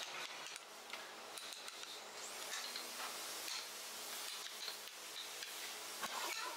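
Wooden mallet tapping the handle of a carving gouge, which cuts and splits chips from a large block of wood in repeated light knocks, with one sharper knock near the end.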